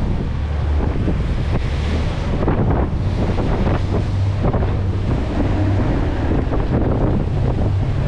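Fishing boat running fast through choppy sea: wind buffeting the microphone and water rushing and splashing along the hull, over the steady low drone of the outboard engine.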